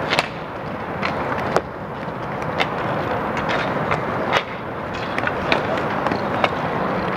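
Inline skate wheels rolling and scraping on an outdoor asphalt rink in a steady rumble, with sharp clacks of hockey sticks about once a second at irregular intervals.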